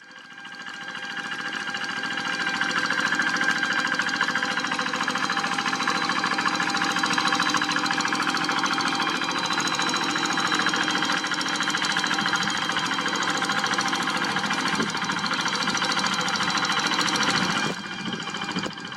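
Single-cylinder diesel engine of a walk-behind tractor running steadily with a fast, even clatter. It fades in at the start, and the level drops suddenly near the end.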